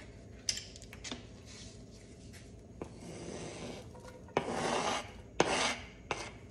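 Kitchen utensils scraping and clicking in a frying pan as shallots go into melting butter: a few light clicks, then two short scraping strokes near the end.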